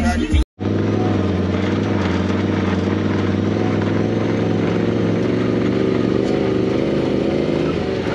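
Side-by-side UTV engine running steadily at an even speed.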